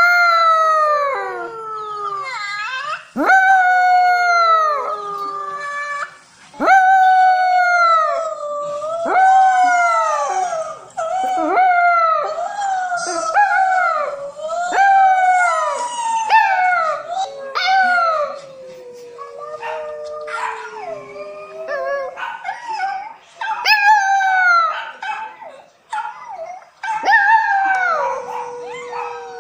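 French poodle puppy howling over and over, a long run of howls that each start high and slide down in pitch.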